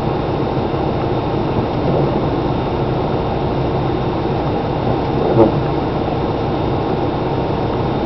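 Cab interior sound of a 2011 Dodge Ram 3500's Cummins turbo-diesel inline-six idling steadily in traffic, with a brief creak or squeak about five and a half seconds in.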